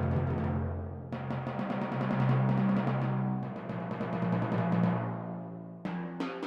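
Sampled timpani from a Kurzweil SPS4-8 digital piano's timpani orchestra sound, played as rolls that move to a new pitch every second or two, with a few sharper single strokes near the end.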